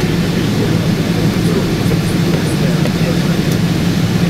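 Steady cabin noise inside a Boeing 777-200 heard from a window seat near the tail: a low engine hum with a constant rushing noise over it.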